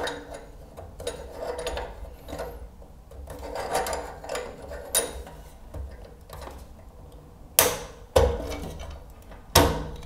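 Hand twisting an old thermostatic radiator valve head off its valve body: plastic rubbing and scraping in short, uneven strokes. A few sharp knocks come in the last few seconds.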